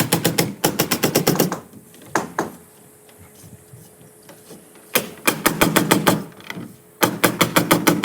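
Nail gun firing in rapid bursts, about eight sharp shots a second, with two single shots and short pauses between bursts.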